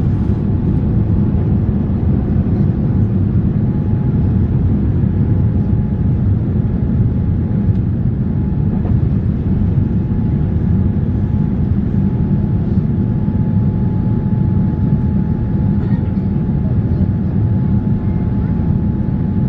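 Cabin noise of a Boeing 787-9 during takeoff and initial climb: a loud, steady low rumble of engines and airflow, with a faint steady whine coming in a few seconds in.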